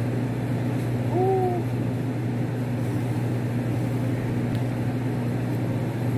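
Steady low mechanical hum that does not change, with one short hummed voice sound about a second in.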